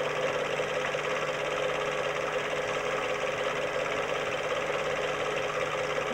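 Film projector running: a steady, rapid mechanical clatter with a whirr underneath.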